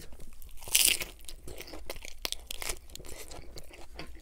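A crunchy bite into an iceberg-lettuce-wrapped burger about a second in, then steady chewing with crisp lettuce crunches.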